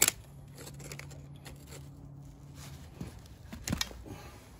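Tongue-and-groove pliers clicking and scraping as they grip a casting's sprue and dig it out of dry sand: one sharp click at the start and a few more scrapes and knocks about three seconds in. A faint steady low hum runs under the first part.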